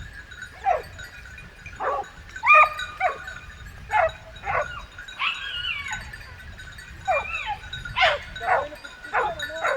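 Boar-hunting dogs baying, a dozen or so short falling barks and yelps in an irregular string from more than one dog as they give tongue on the boar's trail, over a faint steady tinkle of the bells they wear.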